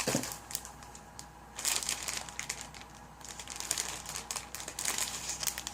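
Sock packaging crinkling and rustling as it is handled, in irregular spells, loudest about two seconds in and again near the end.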